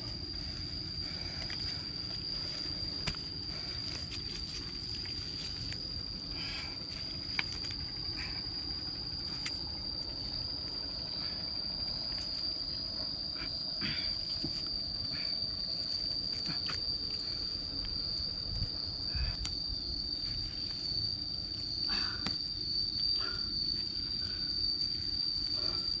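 An insect droning at one steady high pitch, over a low rumble, with scattered short rustles and clicks that come more often in the second half.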